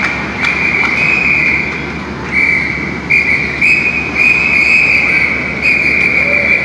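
A shrill, high whistle tone sounding in a string of long held notes, each about half a second to a second, with short breaks and small steps in pitch between them.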